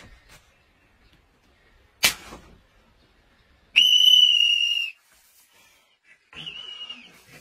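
A stretched rubber band snaps against a leg with a sharp crack about two seconds in. It is followed by a loud, steady, shrill whistle held for about a second, and a shorter, weaker whistle near the end.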